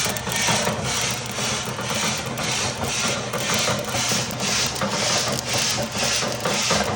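Coffee beans tumbling in a rotating drum roaster: a rhythmic swish about two and a half times a second over the roaster's steady hum, with the beans cracking as the roast nears its end.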